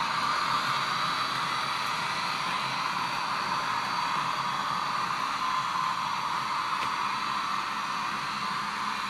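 PIKO H0-scale model of a PKP EU07 electric locomotive running with its onboard sound on: a steady, even whirring hiss from its small speaker.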